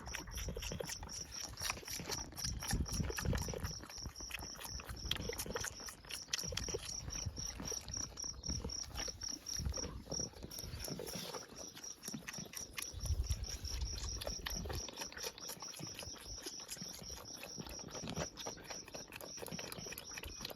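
Insects chirping, a high-pitched, rapidly repeated pulsing that keeps an even rhythm throughout, with intermittent low rumbles underneath.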